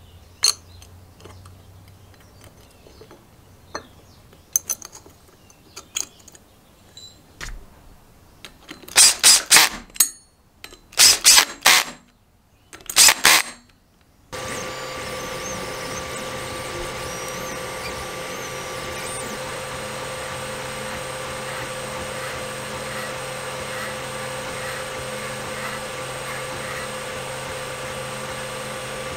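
Light clicks of bolts being set by hand on an engine's recoil starter cup, then three short runs of a power drill driving the bolts home. These are followed by a 3D printer running with a steady whir and a held hum.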